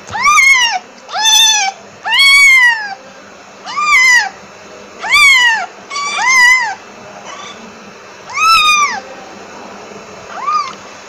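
Domestic cat meowing about eight times, each meow rising and then falling in pitch, with short pauses between them; the last meow is short and softer.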